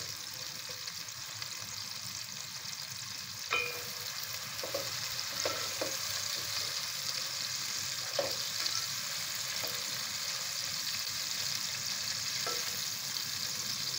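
Sliced onions sizzling in hot oil in an aluminium pot, a steady frying hiss, with a handful of short taps and scrapes of a spoon against the pot as they are stirred, the loudest about three and a half seconds in. The onions are browning.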